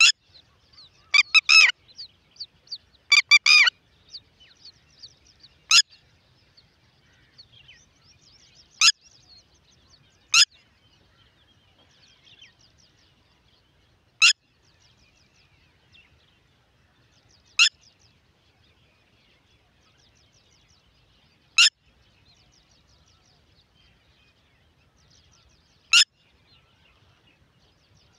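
Red-wattled lapwing calling: two loud bursts of several rapid notes in the first few seconds, then single sharp, piercing notes every three to four seconds, over faint twittering of small birds.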